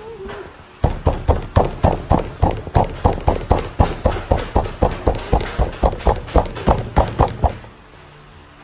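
Hands patting a log of bread dough on a work table, a steady run of sharp pats about four a second that starts about a second in and stops shortly before the end.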